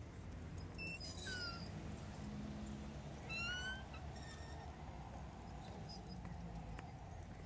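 Low steady rumble of street ambience, with a few short rising chirp-like animal calls, the most about three seconds in.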